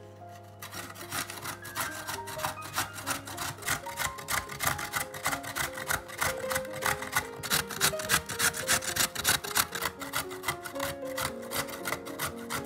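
A carrot being grated on a stainless-steel box grater: quick, even rasping strokes starting about half a second in, with piano music behind.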